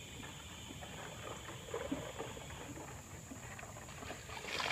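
Ice water sloshing and ice cubes clinking as a plastic container is scooped through a cooler of ice water. Near the end a louder rush begins as the ice water starts to pour out.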